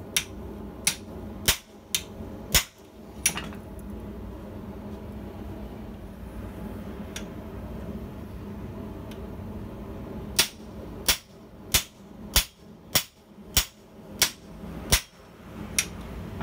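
Hand hammer striking the top die of a vise-held guillotine forging tool, sharp metallic blows on steel as a piece of hot steel is pressed between the dies. About six blows come quickly at the start, then a pause, then about nine more at roughly one and a half a second, over a steady low hum.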